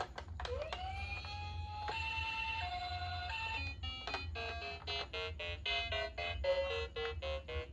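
Toy ambulance's electronic siren: a tone glides up and holds, then switches between two notes in a hi-lo pattern. About four seconds in, background music of short repeated notes takes over.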